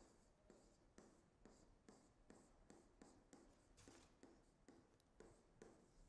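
Faint taps and short scratches of a stylus writing on a tablet screen, a few strokes a second.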